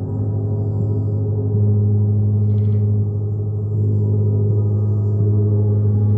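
Several large planetary gongs played continuously, a deep unbroken wash of many overlapping sustained tones. The sound swells louder about a second and a half in and again near the end as the gongs are struck again.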